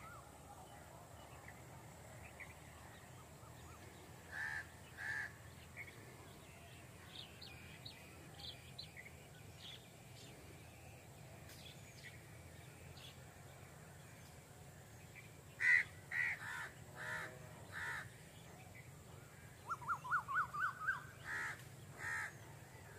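Faint farmland ambience with scattered bird calls: crows cawing several times, loudest in the second half. Near the end another bird gives a quick run of about eight notes stepping up in pitch.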